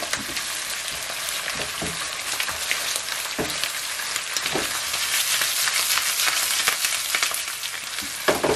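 Sliced onions and ginger-garlic paste sizzling in hot oil in a non-stick frying pan, the paste frying until its raw smell cooks off. A wooden spatula stirs and scrapes through them, with short scrapes and knocks against the pan now and then over a steady sizzle.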